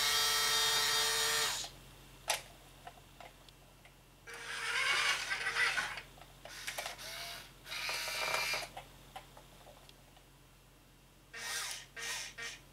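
Small electric motors and gearbox of a Hobby Engine 1/14-scale RC wheel loader whirring in bursts: a loud whir that stops suddenly about a second and a half in, then four shorter whirs with pauses between, one rising and falling in pitch.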